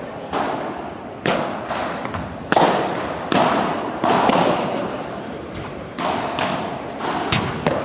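Padel rally: the ball being struck with solid padel rackets and bouncing off the court and glass walls, a series of sharp pops about once a second, each echoing in a large hall.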